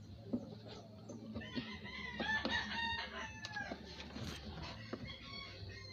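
A rooster crowing once, one long call from about a second and a half in, with faint clicks of a screwdriver working on the speaker's mounting screws.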